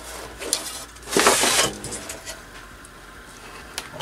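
Wiring being handled and pulled inside a sheet-metal UPS chassis: a short scraping rustle about a second in, with a few light clicks around it.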